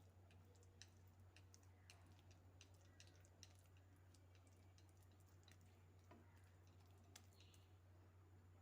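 Near silence: faint, scattered clicks and taps over a low steady hum.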